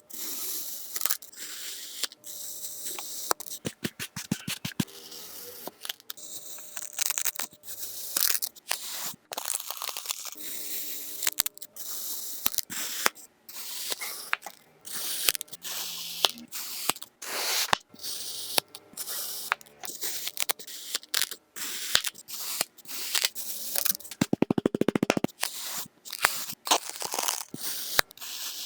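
Kinetic sand being cut and crunched: a long series of short, crisp crunching strokes with brief pauses between them, and a quick crackling run of clicks about twenty-four seconds in.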